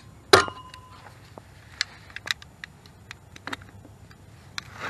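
Metal clank against the water shut-off valve in the meter box, with a short ringing tone, followed by scattered small clicks and taps as the valve is handled.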